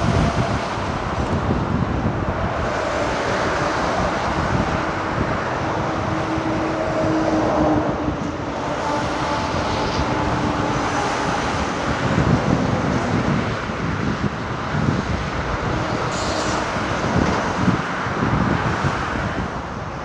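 Diesel engine of a heavy earthmoving machine running steadily under load, with a low rumble and wind buffeting the microphone.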